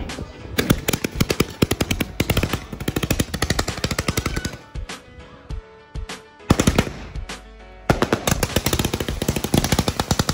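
A 192-shot Venom 500-gram aerial repeater cake firing in rapid volleys, several shots a second, like a machine gun. The volleys are broken by two short lulls around the middle.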